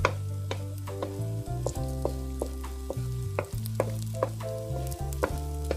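Beaten eggs sizzling in olive oil in a non-stick frying pan while a wooden spatula stirs and breaks them up, knocking against the pan about twice a second. Background music with held chords plays underneath.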